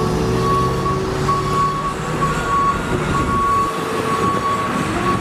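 A heavy vehicle's reversing alarm beeping in a steady, regular series over the low rumble of its diesel engine, amid street noise.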